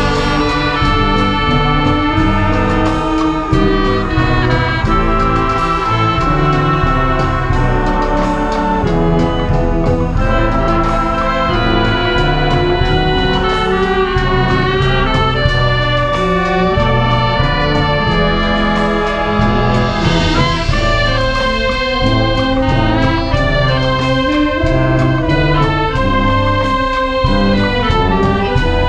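Brass band playing a song arrangement, brass carrying the melody over a steady low bass accompaniment.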